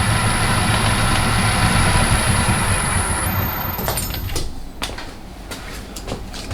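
Myford Super 7B lathe running steadily with a high whine over the hum, then switched off and running down about three to four seconds in. A few light clicks and knocks follow.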